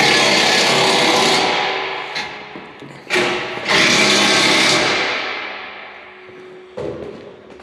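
Impact wrench running on bolts in two rattling runs of about a second and a half each, one at the start and one about three seconds in, each tailing off afterwards.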